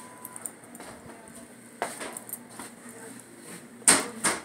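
A few sharp clicks or knocks: one about two seconds in, then two louder ones close together near the end, over faint background noise.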